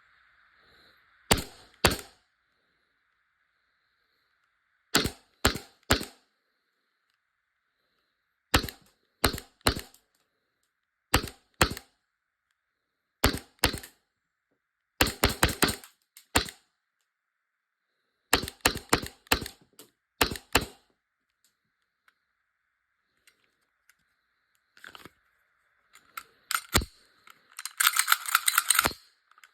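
VFC Glock 17 Gen5 gas blowback airsoft pistol firing, sharp cracks in quick groups of two to four shots with pauses between. Near the end comes a fast string of many shots with a hiss under them.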